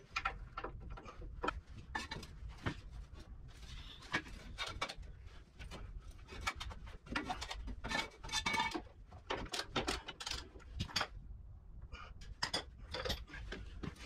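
Wrenches and metal parts clinking and clattering irregularly as bolts are worked on at a tractor's front bolster, some knocks ringing briefly, over a low steady hum.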